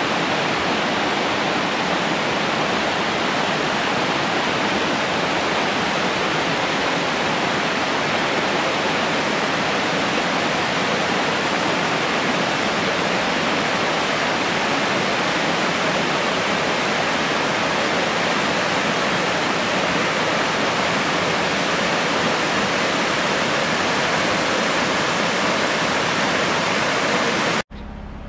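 Large waterfall spilling off a mountainside: a loud, steady rush of falling water. It cuts off suddenly near the end, giving way to a much quieter low hum.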